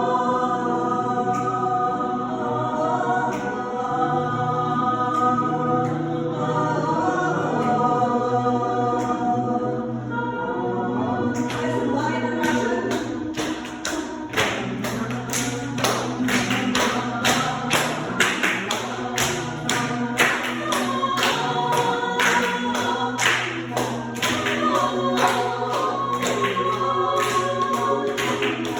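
A choir singing, with sustained voices. About a third of the way in a steady rhythm of sharp beats joins the singing and continues to the end.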